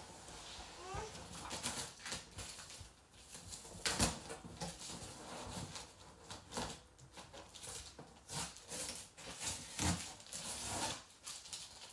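Things being handled inside cardboard moving boxes: rustling and irregular clicks and knocks, with a sharp knock about four seconds in and another near ten seconds.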